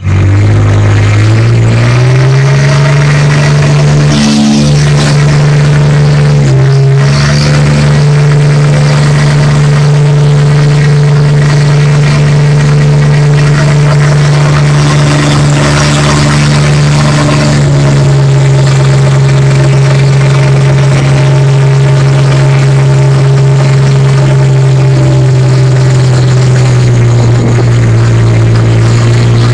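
Small boat's engine running loud and close while under way. It speeds up over the first two seconds, then holds a steady pitch with a few brief dips.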